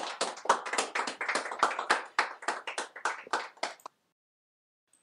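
Brief hand clapping: irregular sharp claps, about four or five a second, stopping about four seconds in.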